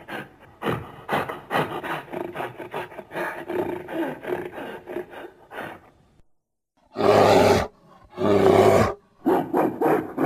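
Gorilla creature sound effect mixed from animal roars: a rapid run of short, pitched calls for about six seconds, then three loud roars in quick succession.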